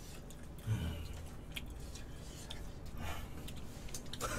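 Quiet room with two short, faint low vocal sounds, about a second in and again near three seconds, and a few small clicks between them.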